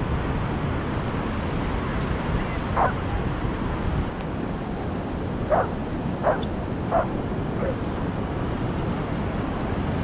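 A dog barking: one bark about three seconds in, then three quick barks a little past halfway, over a steady rushing background noise.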